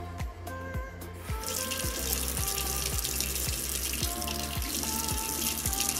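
Bathroom sink faucet running, water pouring into the basin over a toothbrush held under it; the flow starts about a second and a half in. Background music with a steady beat plays throughout.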